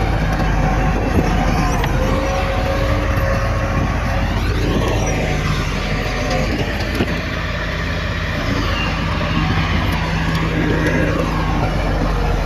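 Heavy diesel earthmoving machinery running steadily, a low engine drone with a pitch that rises and falls briefly twice, about four seconds in and again near the end.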